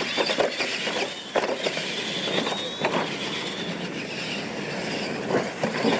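Two electric R/C monster trucks racing side by side on dirt: motors and gears whining, the pitch rising and falling with throttle, with several sharp thuds as they hit and land off the jumps.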